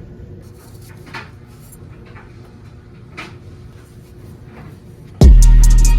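A few light clicks and knocks of handling, then about five seconds in, background music cuts in with a loud, deep bass hit that rings on.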